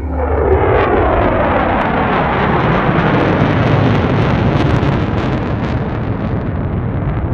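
Jet engine noise of a formation of military jets (Panavia Tornado, F-16 and Eurofighter Typhoon) passing close by. A whine falls in pitch over the first second or so, then the loud jet noise holds steady.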